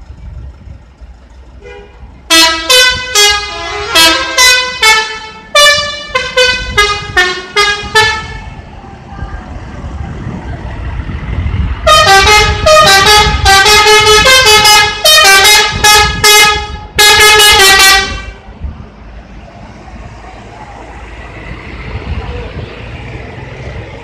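Scorpion Holidays coach's telolet horn, a multi-tone musical air horn, playing two loud runs of quick notes that jump between pitches, the first starting about two seconds in and the second about twelve seconds in. A low bus engine rumble runs underneath.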